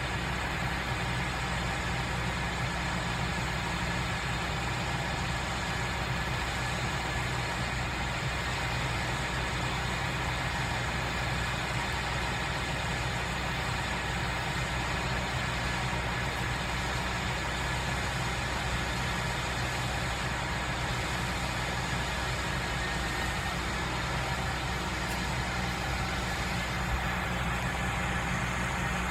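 Engine running steadily with an even low hum that holds without change.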